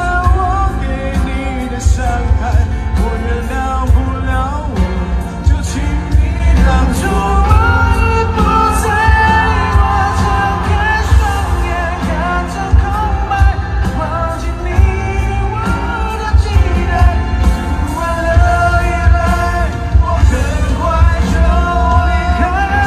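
Male pop singer singing a ballad live in concert over full band accompaniment with heavy bass.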